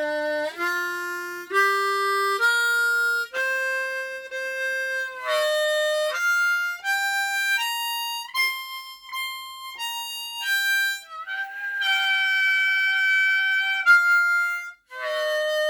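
Hohner Rocket diatonic harmonica in low F played one clean note at a time through the minor pentatonic scale, stepping up for about eight seconds and then back down, with a longer held note near the end.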